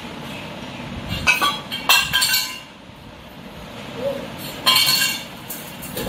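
Light clinking in three short bursts, about a second in, around two seconds and near five seconds.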